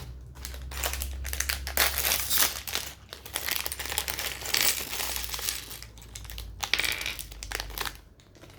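Packaging crinkling and rustling for several seconds in irregular crackles as a blind-box wrapper is handled and opened.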